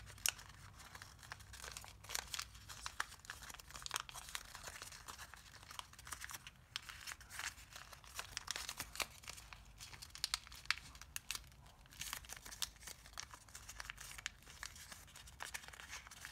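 Thin origami paper crinkling as it is folded, tucked and collapsed by hand, a soft stream of small irregular crackles.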